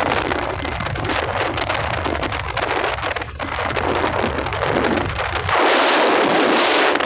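Wind buffeting a phone microphone on a moving scooter: a rough, steady rush with a low rumble underneath. About five and a half seconds in the rumble drops away and it turns into a louder hiss as the phone turns into the wind.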